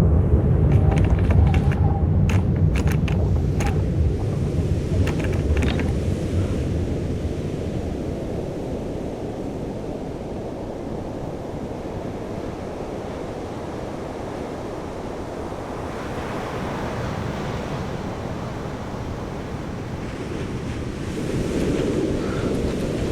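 Layered soundscape of surging water and wind, with a heavy low rumble that fades away over the first several seconds. A scatter of sharp clicks and crackles comes in the first few seconds, then a steady rushing wash that swells up again twice.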